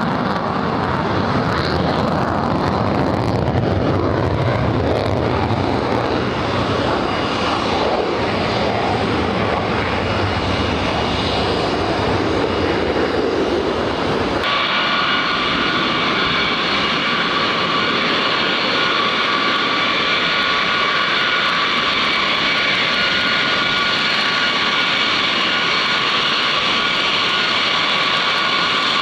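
B-52 Stratofortress's eight TF33 turbofan engines running at taxi power: a broad rumble at first, then, about halfway through, an abrupt switch to a steady high-pitched turbine whine with several whistling tones.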